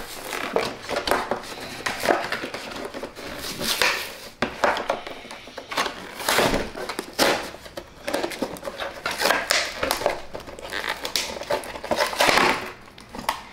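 Clear plastic blister packaging being pried and torn open by hand, crinkling and crackling irregularly as the toy truck is worked free.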